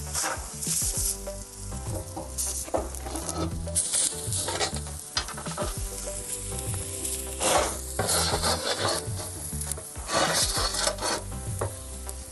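A tomahawk steak sizzling on a very hot cast-iron grill plate in a wood-fired pizza oven, just after being turned. A metal grill tool scrapes and clicks against the plate as it works the steak.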